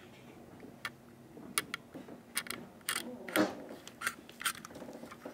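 A pointed tool scratching and nicking the plastic side of a model freight car to distress it: a run of short, irregular scrapes and clicks, the loudest about three and a half seconds in.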